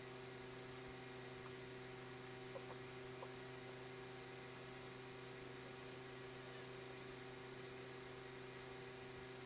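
Low, steady electrical hum over a background hiss, with three faint ticks about two and a half to three seconds in.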